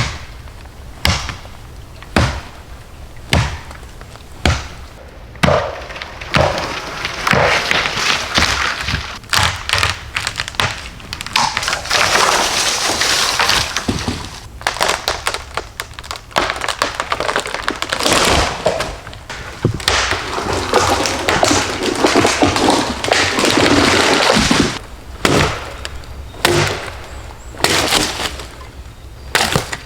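Hand-tool building work: a run of sharp knocks about one a second, then long stretches of scraping and crunching broken by more knocks.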